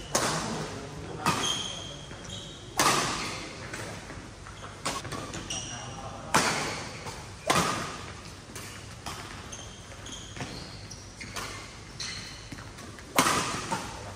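Badminton rackets striking a shuttlecock in a rally: a string of sharp smacks one to several seconds apart, including a jump smash at the start, each echoing in a large hall. Short high squeaks of shoes on the court mat come between the hits.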